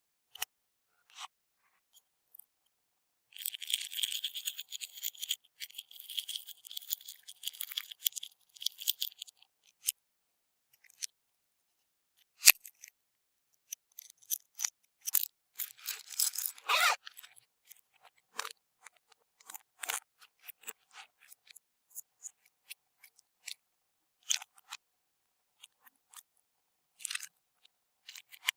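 Crunchy bead-filled slime being squeezed and worked by hand, crackling and popping. A dense run of crackle lasts several seconds, then comes a scattered series of clicks and pops with one sharp snap near the middle.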